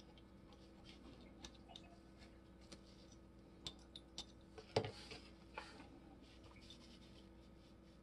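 Light clicks and faint scraping of a small screwdriver's metal tip against a small chrome-plated part of an antique cast iron level, handled closely, with one sharper click a little past halfway.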